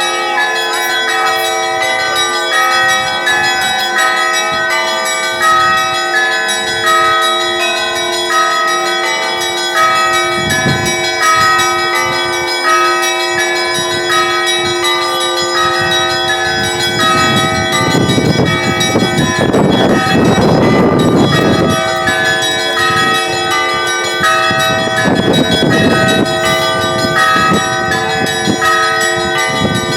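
Russian Orthodox church bells ringing together: many bells sound at once, with quick repeated strikes on the higher bells over the ringing of the lower ones. About two thirds of the way through, a rushing noise swells under the bells for a few seconds.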